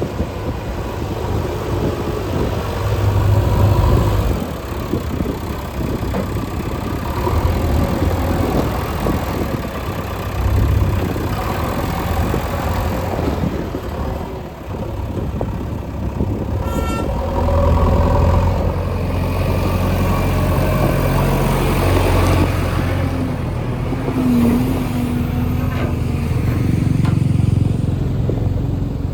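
Diesel engines of heavy road-construction machinery running and working, the engine sound swelling and easing as the loads change. A brief run of rapid high ticks comes about halfway through.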